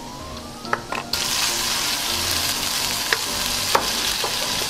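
Minced pork frying in hot oil with pounded garlic and chilli in a non-stick pan: a loud sizzle starts suddenly about a second in and keeps on, with a few sharp clacks of the spatula against the pan as the meat is stirred.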